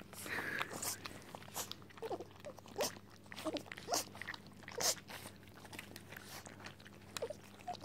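Cocker spaniel puppies eating from bowls: irregular small smacking, crunching and clicking noises of chewing and lapping, with the odd little puppy squeak.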